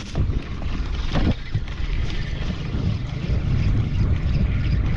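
Wind buffeting the microphone on an open boat at sea: a steady low rumble, with a couple of brief knocks in the first second or so.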